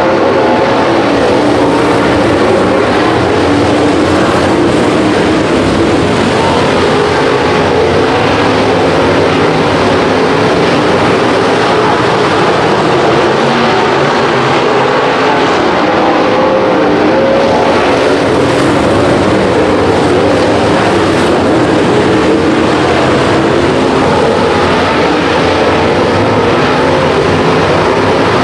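Dirt-track race car engines running at speed, loud and unbroken, their pitch wavering up and down as the cars go around the track.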